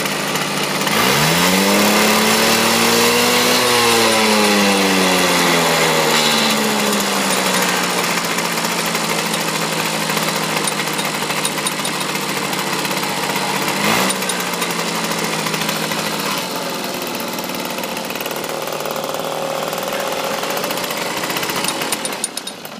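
Tuned Puch Maxi S moped's single-cylinder 50 cc two-stroke engine, with a piston window cut and a shaved cylinder head, running on its stand. It revs up once about a second in, pitch rising for a couple of seconds and falling back, then settles to a steady fast idle, with one sharp click a little past the middle.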